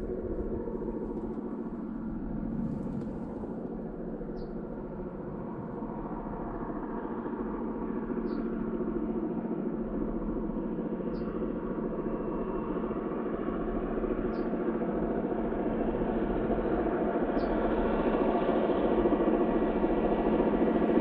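Twin NOHAB MY diesel locomotives, with EMD two-stroke engines, hauling a loaded timber train and drawing near: a steady engine drone of several held tones that grows slowly louder.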